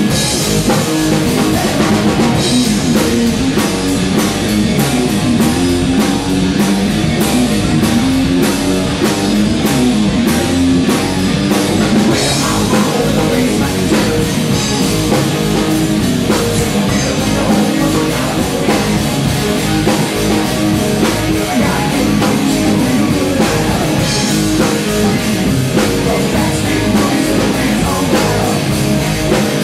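Rock band playing loudly on drum kit, electric guitar and bass, with steady cymbal strokes keeping time.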